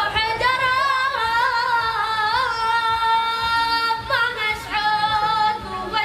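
A high voice singing long, held notes with wavering ornaments, with little or no accompaniment; the phrase breaks briefly about four seconds in before the next note.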